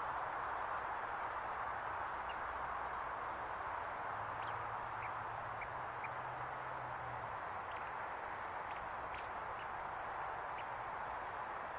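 Faint, scattered small clicks of a red squirrel gnawing scales off a conifer cone, over a steady background hiss.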